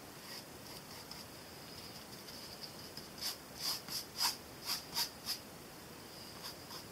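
Paintbrush bristles scratching across a panel as acrylic paint is brushed on, in a quick run of about six short strokes, roughly two a second, over faint room hiss.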